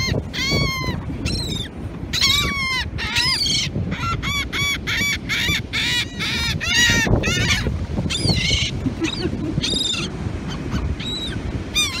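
A group of gulls calling over and over in short, arched squawks, often in quick runs, with a few gaps between them. A steady low rush of wind and surf runs underneath.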